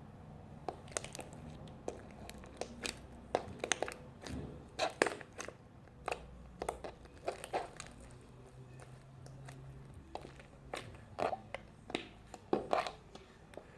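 Hands kneading and stretching sticky, half-liquid slime, making irregular wet clicks and crackles.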